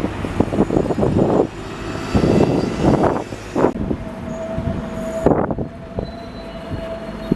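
Rail vehicle passing, with a fast, uneven run of knocks in the first second and a half and a steady whine setting in about halfway through.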